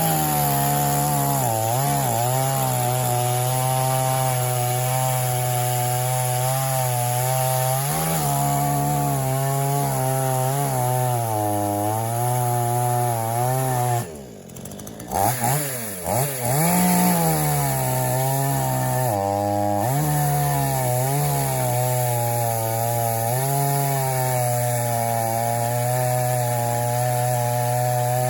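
PROYAMA 62cc two-stroke chainsaw running at full throttle while cutting wood, its engine pitch repeatedly sagging and recovering as the chain is loaded. The high-speed (H) carburetor screw has been turned in half a turn, so the saw can be worked hard without stalling. The sound drops away for about a second midway, then the saw comes back up to speed.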